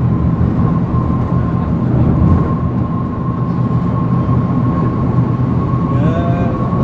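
Steady low rumble of a car travelling at highway speed, heard from inside the vehicle: tyre and engine noise, with a steady high whine running through it. A few gliding pitched sounds come in near the end.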